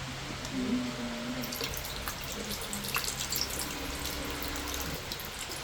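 Water running steadily, with a few faint ticks and faint voices in the background.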